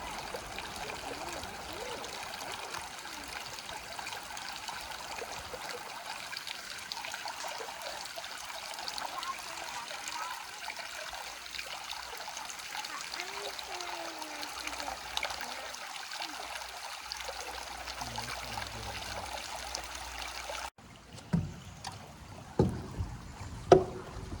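Steady rush of flowing stream water. About 20 seconds in it cuts off abruptly to a quieter background with a few sharp knocks.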